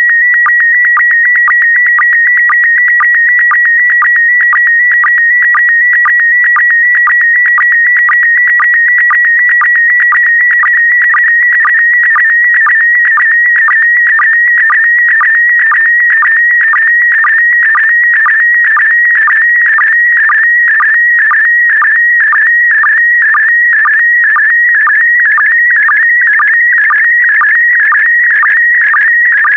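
Slow-scan TV image signal in PD120 mode: a continuous tone near 2 kHz that wavers as it carries the picture's brightness and colour, broken about twice a second by a short lower blip, the line sync pulse. It is an encoded photo being sent line by line for a decoder to turn back into an image.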